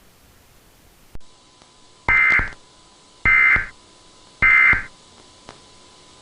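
Emergency Alert System end-of-message tones: three short bursts of buzzy digital data tones, each about half a second long and about a second apart, marking the end of the alert. A click comes just before them.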